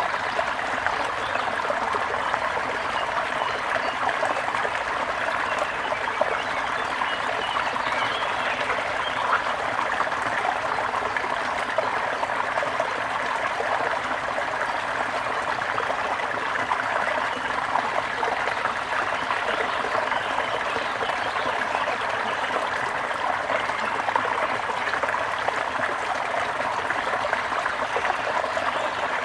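Stream water trickling and babbling, a steady, even flow.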